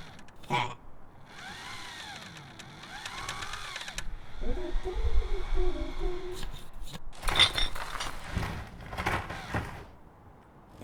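Mechanical Foley effects for a small robot. Whirring motor sounds rise and fall in pitch, then comes a low rumble with a wavering tone. A run of sharp clicks and clanks follows in the second half and dies away near the end.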